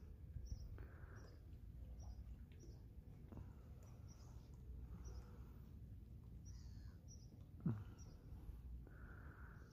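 Faint outdoor ambience: a steady low rumble, with small birds chirping faintly over and over, and one brief louder sound about three-quarters of the way through.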